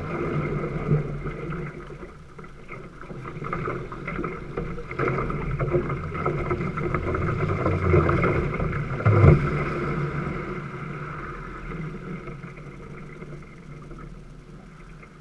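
Water rushing and splashing against an outrigger canoe's hull and float as it is paddled through choppy current. It builds to a peak with a single thump about nine seconds in, then fades as the water calms.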